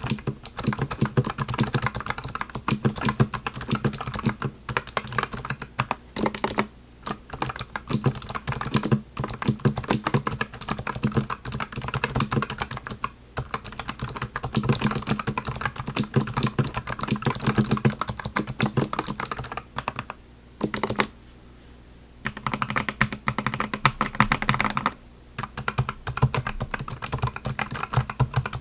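Fast typing on a Keychron V5 mechanical keyboard fitted with TTC Brother Clicky switches: a dense run of sharp key clicks, since these switches click on the downstroke. The typing stops briefly several times, with the longest pause about two-thirds of the way through.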